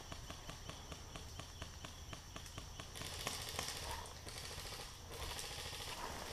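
Faint outdoor ambience: insects chirping, a steady high buzz with quick, even clicks. About three seconds in there is a louder rustle of grass and clothing as the prone player shifts, and another near the end.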